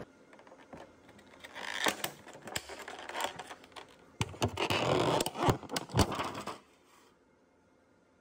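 Thin plastic bag and the clear plastic lid of a takeout salad container crinkling and clicking as they are unwrapped and opened by hand, in uneven bursts that start about a second and a half in and stop about a second and a half before the end.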